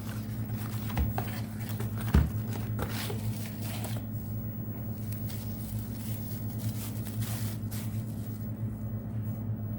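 Hands unpacking and handling a boxed product: crinkling packaging and a few knocks, the loudest about two seconds in, over a steady low electrical hum. The handling dies down after about four seconds.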